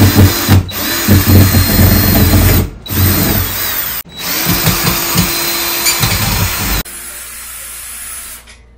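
DeWalt cordless drill drilling into a wooden board on a wall, the motor running in several runs with short stops about three and four seconds in. The last run holds a steady whine and cuts off suddenly about seven seconds in, leaving only faint sound after.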